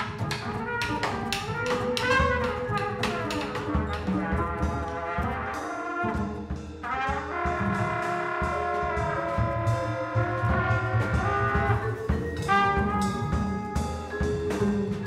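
Jazz sextet playing: trumpet, alto saxophone and trombone sound held notes and chords together over double bass and drums, with cymbal and drum strikes throughout.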